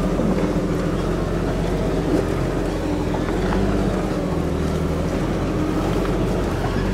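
Jeep Wrangler TJ engine idling steadily as the automatic crawls along the trail with no throttle, heard from inside the cab as an even low hum.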